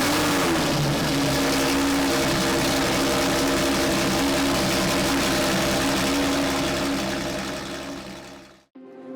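Ferrari LaFerrari's V12, with a straight-piped RYFT titanium exhaust and no mufflers, firing up with a brief flare in revs and then idling steadily and loud. The sound fades away about eight seconds in.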